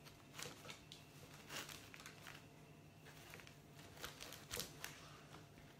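Faint, scattered crinkling of cellophane wrap as hands wind a wired organza ribbon around the gathered neck of a wrapped hamper, over a low steady hum.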